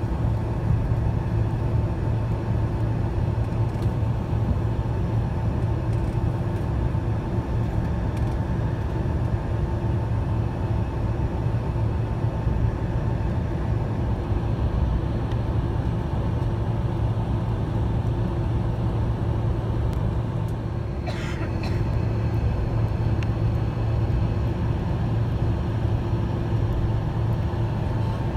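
Steady engine hum and rumble heard inside the cabin of a Boeing 767-300ER taxiing, with a low drone and a few steady tones. A brief rattle about two-thirds of the way through.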